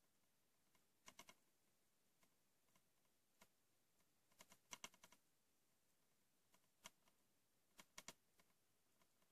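Faint light clicks and taps of a plastic DVD case being handled, in small clusters about every three seconds with single clicks between, over near silence.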